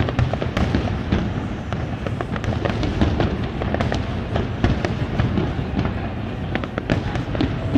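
Fireworks display going off in a rapid, continuous stream of bangs and crackles over a constant low rumble, with no pause between bursts.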